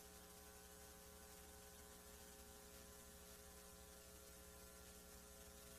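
Near silence: a faint, steady electrical mains hum with its overtones and light tape hiss from VHS playback.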